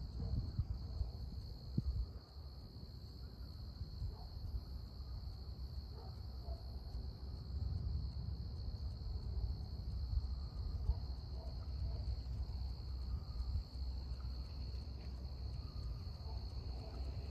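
Crickets trilling steadily in one continuous high tone, over a louder low rumble that rises and falls.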